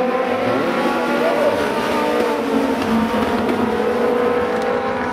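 A pack of Legends race cars, small coupes with motorcycle engines, racing on a short oval. Several engines run at high revs together in a steady drone, with pitches gliding up and down as the cars pass through the turns.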